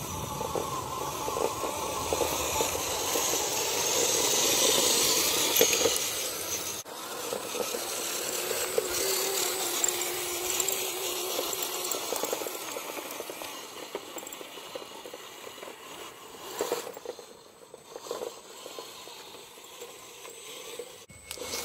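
WPL B24 GAZ 6x6 RC truck driving over rough ground, its drivetrain rattling loudly over the hum of its small electric motor. It is loudest about five seconds in as it comes close, breaks off sharply about seven seconds in, then runs on more quietly and fades.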